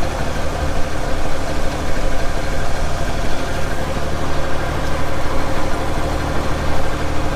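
Engine of a small Case loader fitted with pallet forks, idling steadily with a low, even hum.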